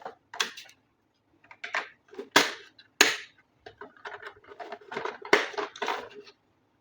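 Handling noise from unboxing a toy RC vehicle and its packaging: an irregular run of sharp clicks, taps and short scrapes that stops about six seconds in.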